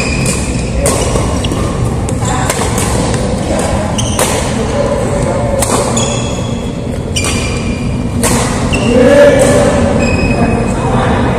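Badminton rally: rackets striking the shuttlecock with sharp cracks about every one and a half seconds, with short high squeaks from shoes on the court mat and voices in a large echoing hall.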